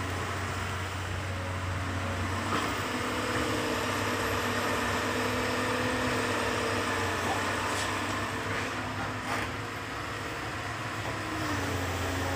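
Komatsu hydraulic excavator's diesel engine running under load while it digs, swings and dumps soil, a steady low hum with higher tones that come and go as the boom and bucket move. A couple of brief knocks.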